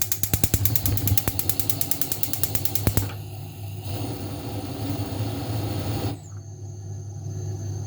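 Rapid run of clicks from a kitchen stove control for about three seconds, then stops, leaving a steady low hum.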